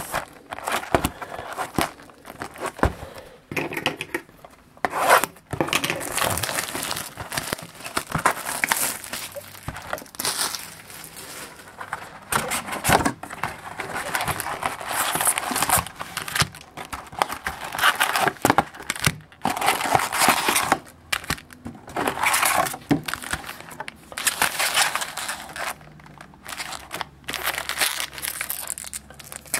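Tearing and crinkling of packaging as a baseball card box is opened, then foil-wrapped card packs crackling in the hands as they are pulled out and stacked, in irregular bursts throughout.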